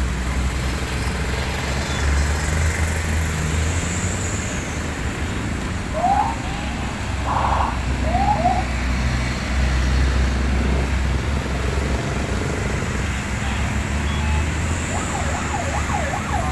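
Convoy of wheeled military armoured vehicles driving past, a steady deep engine rumble that swells and eases as each vehicle goes by. A few short rising siren-like whoops come in about six to eight seconds in.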